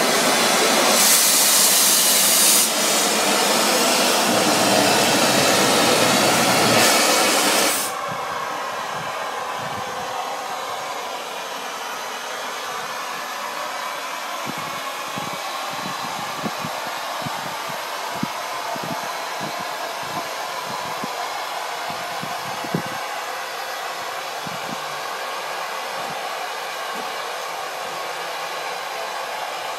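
Steam locomotive standing at rest, blowing steam loudly from its cylinder drain cocks, a strong even hiss that cuts off sharply about eight seconds in. After that a softer, steady hiss goes on, with a few light clicks.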